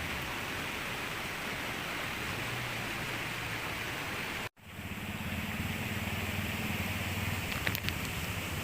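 Steady rushing of a river flowing past the campsite. The sound cuts out for an instant about halfway through, then resumes with a faint low hum under it and a few light clicks near the end.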